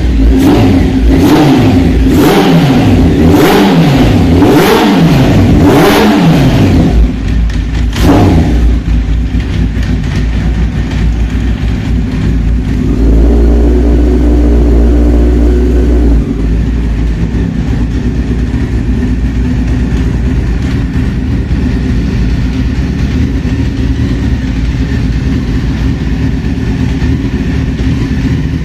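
Honda CBR four-cylinder motorcycle engine running with the carburettor intakes bare, airbox off: revved up and down in a series of quick blips for the first several seconds, then settling to a steady idle, briefly louder near the middle.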